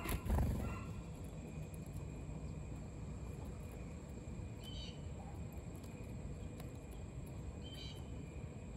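A close low thump and rustle in the first second, then two short chirps from house sparrows, about five and eight seconds in.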